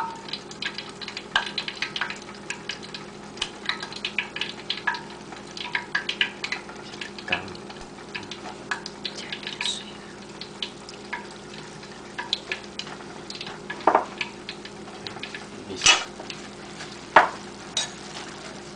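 Orange sauce thickened with cornstarch sizzling in a pan while a spatula stirs it, scraping and clicking against the pan many times. There are a few louder knocks near the end.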